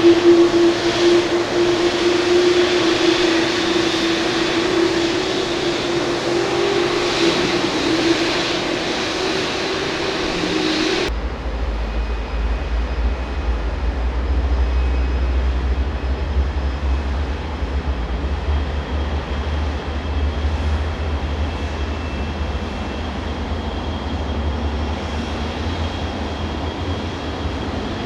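Boeing 787 turbofan engine running during its start sequence at light-off. The sound comes from two recordings cut together: first a steady hum with a strong hiss, then, from about eleven seconds in, a low rumble with a fainter hiss.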